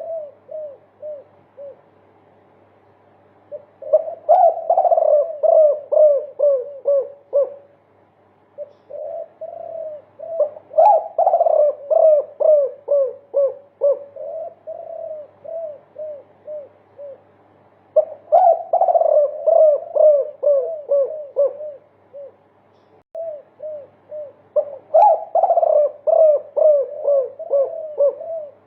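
Spotted dove (derkuku) of the multi-kuk type cooing in long runs of short repeated notes, a few per second. The runs come in about four bouts, each opening with a louder, higher note.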